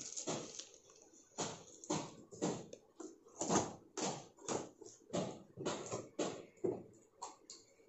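Cardboard carton being cut open and its flaps pulled back: a quick series of short scraping and rustling strokes of cardboard and packing tape, about two a second.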